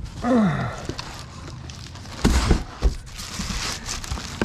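Plastic wrap crinkling and a cardboard box rustling as a wrapped control panel is handled in its box, with a couple of dull knocks a little over two seconds in.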